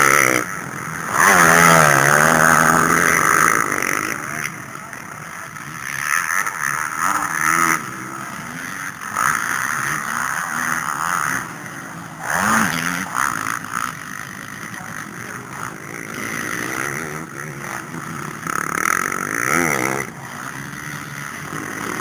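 Motocross bike engines revving and rising and falling in pitch as riders pass on the track, loudest in the first few seconds, then fainter bikes revving further off.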